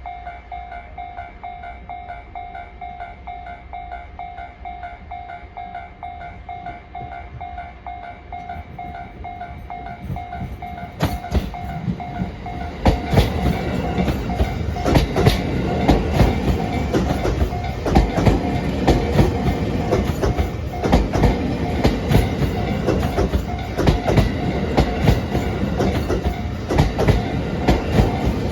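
A Japanese level crossing warning bell rings in a steady pulsing pattern throughout. About ten seconds in, a JR East E257 series 2000-subseries electric train approaches, and from about thirteen seconds it passes close by, its wheels clacking rapidly over the rail joints.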